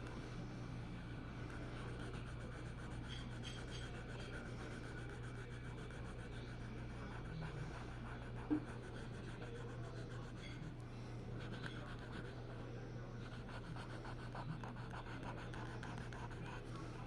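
Faint scratching of a drawing tool on paper, with a steady low hum underneath and a single sharp tap about halfway through.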